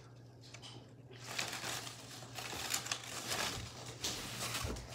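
Crinkling and rustling of handled plastic and paper craft materials in several short spells, with a few light ticks near the middle, over a low steady hum.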